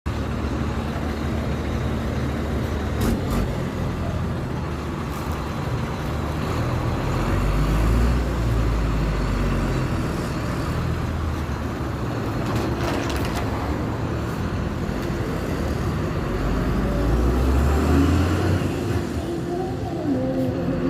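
Turbocharged diesel engine of a 2017 Marcopolo Torino city bus running with a deep rumble, its note swelling about eight seconds in and again near the end.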